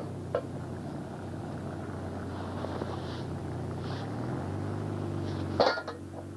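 Steady engine drone made of several low held pitches, stepping slightly higher about four seconds in. A brief click near the start and a short, louder sharp sound near the end.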